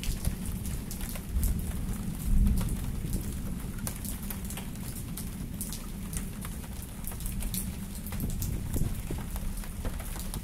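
Rain falling in a severe storm, many close drops ticking sharply over a steady low rumble that swells briefly about two seconds in.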